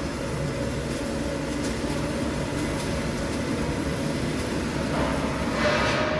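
Steady low mechanical hum with faint steady tones and no clear strokes or breaks.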